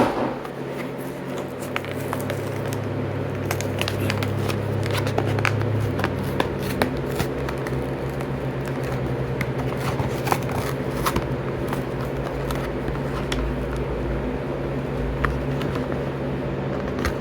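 Die-cast toy car packaging being opened by hand: plastic blister and cardboard card crackling and crinkling in many scattered sharp clicks, over a steady low hum.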